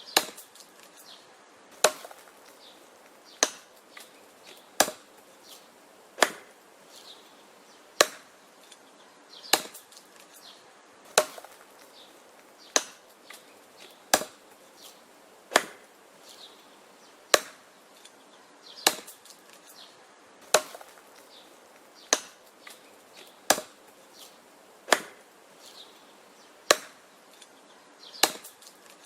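Wood being chopped with an axe: sharp, even strikes about every one and a half seconds, with fainter knocks of wood between them.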